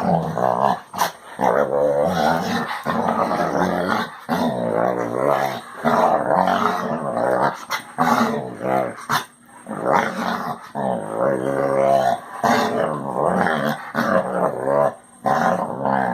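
Basset hound vocalizing in a long series of drawn-out, pitched noises, about ten bouts of a second or two each with short breaks between.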